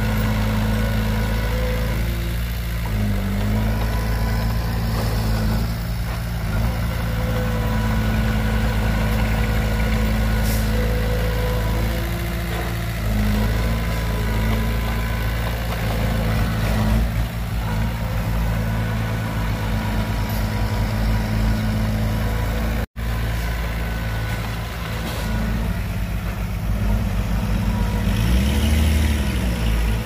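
Heavy diesel engine running steadily, its pitch shifting slightly now and then. The sound cuts out for an instant about three-quarters of the way through.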